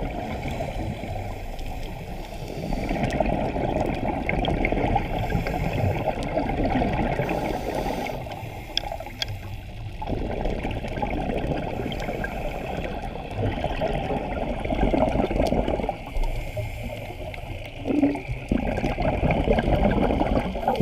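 Underwater bubbling and gurgling from a scuba diver's exhaled bubbles and regulator, heard through the camera housing. It comes in long surges with brief lulls about 9 seconds in and again about 16 seconds in.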